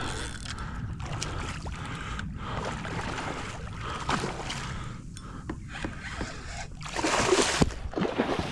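Water splashing and sloshing around a kayak while a hooked snook is being fought, with a louder rush of splashing about seven seconds in.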